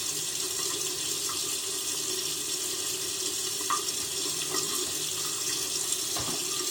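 Bathroom sink tap running steadily into the basin, with a few faint small splashes.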